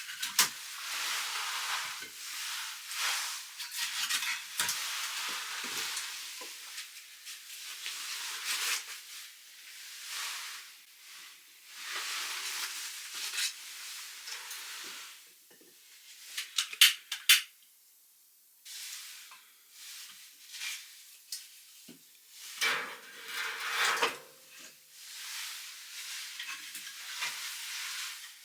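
Washing dishes by hand in a basin: water splashing and sloshing in bursts, with dishes and cutlery clinking, a few sharp clinks about two-thirds of the way through.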